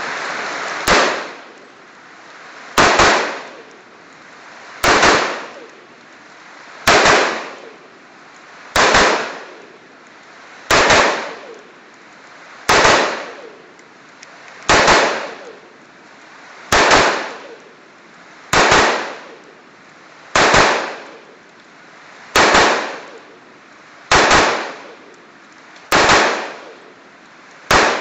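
Colt M4 short-barrelled 5.56 mm rifle with a Troy Industries Claymore muzzle brake fired semi-automatically in slow aimed single shots, about fifteen in all, one every two seconds. Each report trails off over about a second, with steady rain hiss between the shots.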